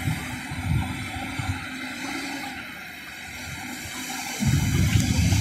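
Volvo EC350DL excavator at work, its diesel engine running under a rushing, scraping noise as the bucket digs into a crushed-stone stockpile. About four seconds in the noise grows much louder as the loaded bucket lifts and loose stone pours off it.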